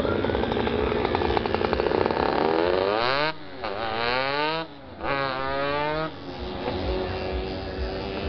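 Racing motorcycle engines running on the circuit, a steady drone at first. About three seconds in a bike passing close revs hard, its note climbing, breaking off and climbing again twice, as in upshifts, before holding steady.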